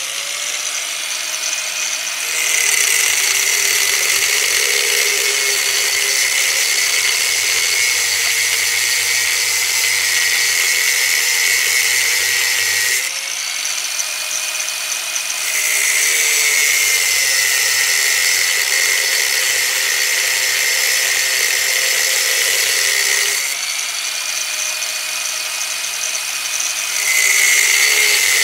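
A 125 mm angle grinder cuts sheet metal with a loud, steady whine and a hissing grind. Three times the grind grows louder and the pitch sags slightly as the disc bites into the metal: about two seconds in, about halfway, and near the end. Between the cuts the motor runs free at a slightly higher pitch.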